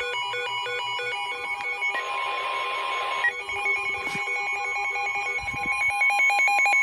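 Weather radio sounding its alert for a severe thunderstorm warning: a long steady warning alarm tone with rapidly alternating beeping tones over it, and a short burst of static about two seconds in.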